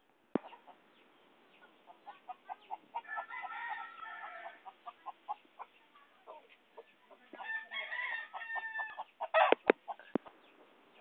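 Gamecock roosters clucking in a quick run of short notes, with a rooster crowing twice, about three seconds in and again about seven and a half seconds in. Two sharp knocks come near the end.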